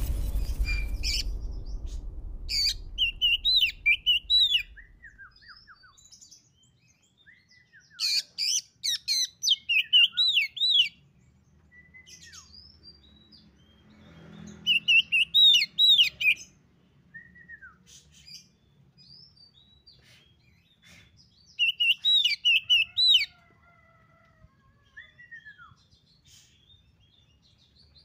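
Oriental magpie-robin singing in four short phrases of rapid, high chirping notes, each two to three seconds long, with scattered softer calls between. A low rumble fades out over the first few seconds.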